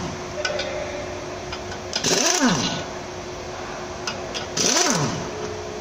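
A hand-held power tool whirring in two short bursts about two and a half seconds apart, each with a hiss and a pitch that sweeps down and back up as it spins up and slows, over a steady hum.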